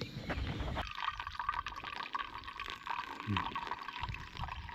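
Hot water pouring in a thin stream from a camp cook pot onto coffee grounds in a pour-over dripper, trickling steadily. The pour starts abruptly about a second in.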